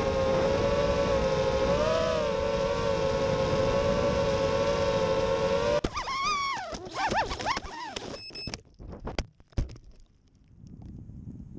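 FPV racing quadcopter's brushless motors and propellers whining steadily, heard through the onboard camera, rising briefly about two seconds in. A little under six seconds in the whine wobbles and breaks up as the quad crashes, with several sharp knocks as it hits and tumbles to the ground and the motors stop.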